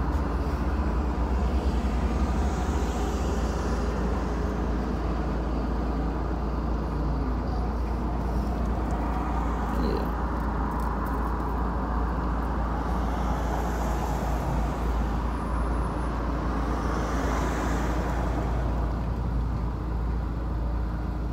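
Mazda Miata's four-cylinder engine and road noise heard from the open cockpit with the top down: a steady drive with a low wind rumble.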